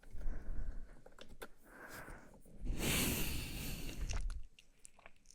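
A woman breathing softly and very close into the microphone, her breath puffing on it. About three seconds in comes one long, breathy exhale, and there are a few faint clicks.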